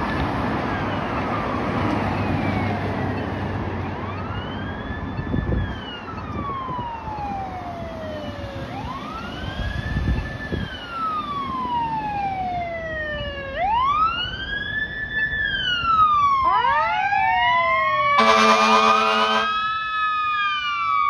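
Fire engine siren wailing, slowly rising and falling and growing louder as the engine approaches. Near the end several wails overlap, and an air horn blasts once for about a second and a half.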